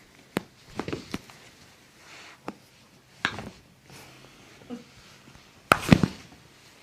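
Sounds of a chiropractic adjustment: a few short, sharp clicks and pops spread over several seconds, the loudest pair about six seconds in.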